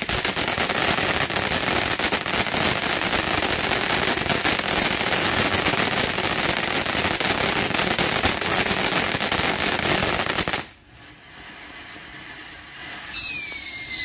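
Black Cat Starfish fireworks fountain burning with a loud, dense crackle that cuts off abruptly about ten seconds in, leaving a softer spray hiss. Near the end a whistle sounds, falling slightly in pitch, for about a second.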